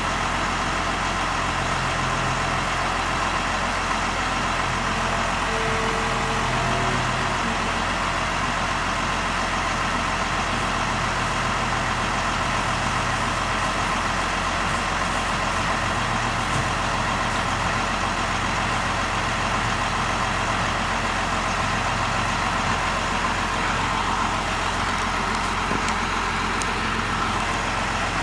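An engine running steadily, a constant low drone under an even rushing noise that does not change.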